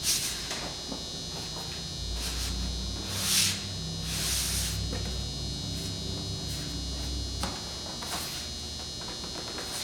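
A steady high-pitched whine and a low hum run under several short rustling, scraping noises of handling. The loudest of these comes about three and a half seconds in.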